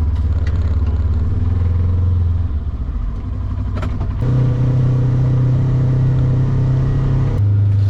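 Vehicle engine running steadily under way, its pitch stepping up about four seconds in and dropping back shortly before the end.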